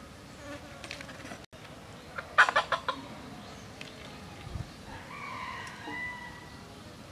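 Rooster calling: a quick run of sharp clucks about two and a half seconds in, the loudest part, then a longer drawn-out call around five seconds in.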